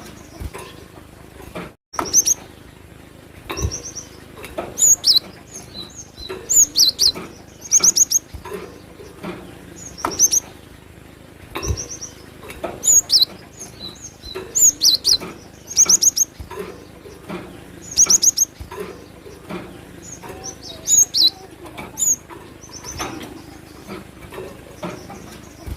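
Cinereous tit (gelatik batu) singing: loud, short, high-pitched chirps repeated in quick clusters every second or two.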